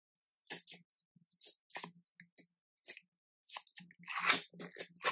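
A thin cardboard retail box being opened by hand. Fingers scrape and pick at the sealed end flap, then pull it open, making a string of irregular crackly scrapes that are loudest about four seconds in.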